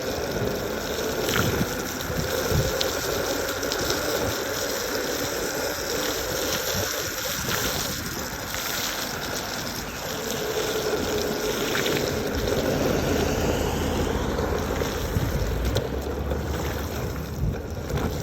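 Backfire Ranger X3 electric skateboard riding through puddles on wet pavement: the wheels hiss and spray water, over a steady electric motor whine that shifts in pitch with speed.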